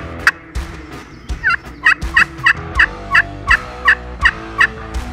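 A hunter's turkey call yelping like a hen: a few single notes at the start, then about a second in a run of about ten evenly spaced two-note yelps, roughly three a second.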